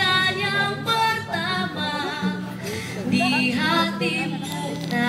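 A woman singing an Indonesian-language love song into a handheld microphone, over instrumental accompaniment.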